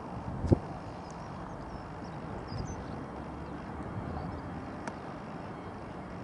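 Twin-turbofan Pilatus PC-24 business jet taxiing, heard as a faint, steady rumble mixed with wind on the microphone. A sharp thump comes about half a second in, and faint bird chirps are heard now and then.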